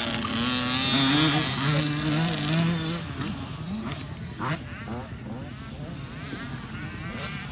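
Motocross dirt bike engines revving on the track. One close bike's engine rises and falls in pitch for about the first three seconds, then fainter bikes run further off, with a brief rev partway through.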